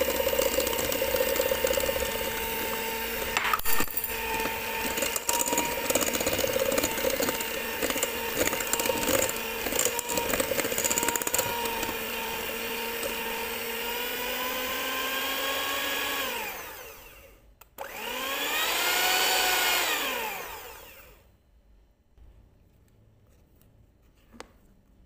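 Electric hand mixer beating chocolate cake batter in a glass bowl: a steady motor whine with scattered clicks of the beaters, its pitch rising slightly and then dying away about 16 seconds in as it is switched off. It runs up once more for about two seconds and winds down to a stop, followed by a single faint tap near the end.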